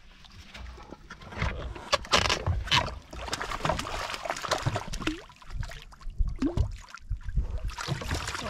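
Water splashing and sloshing around a folding canoe, with irregular knocks and rustles of gear against the hull as a hooked trout is brought toward the landing net. Wind rumbles on the microphone throughout.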